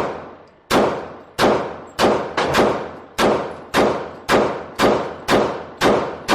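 Glock 23 .40-calibre pistol fired in a steady string of about a dozen shots, roughly two a second, each shot echoing.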